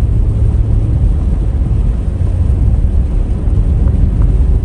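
Steady low rumble of road and engine noise inside a moving car's cabin, driving on wet pavement.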